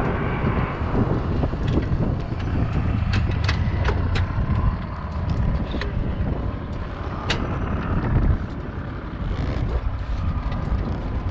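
Steady low vehicle rumble mixed with wind on the microphone, with a few sharp clicks and knocks scattered through it.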